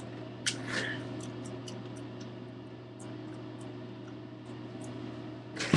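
Handling noise from the doll's accessories: a brief rustle and a few light clicks about half a second in, then scattered faint ticks, over a steady low electrical hum, with a louder rustle or knock near the end.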